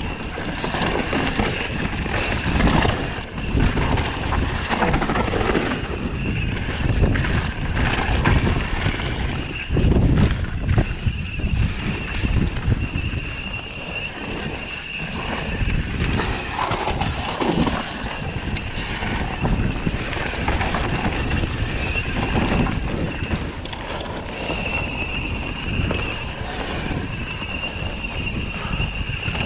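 Propain Tyee mountain bike riding down a dirt singletrack: tyres rolling with frequent knocks and rattles from the bike over the trail surface, under heavy wind rumble on the camera microphone. A thin high whine comes and goes throughout.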